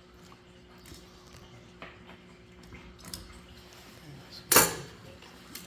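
Handling noise from multimeter probes being set on outlet wires: a few faint clicks, then one sharp clatter about four and a half seconds in, like a hard probe or meter knocking against metal.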